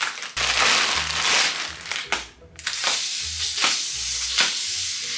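Plastic packaging crinkling and rustling as hands tear and pull at the vacuum-sealed bag around a compressed plush teddy bear, with a short pause a little over two seconds in.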